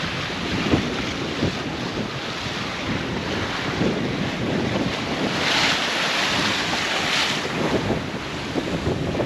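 Strong wind buffeting the microphone and choppy sea rushing past the hull of a sailing yacht under way. Two louder hissing rushes come about five and a half and seven seconds in.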